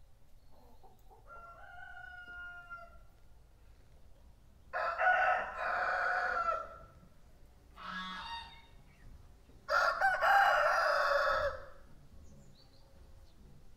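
Rooster crowing: a fainter call first, then two long, loud crows about five seconds apart, with a short call between them.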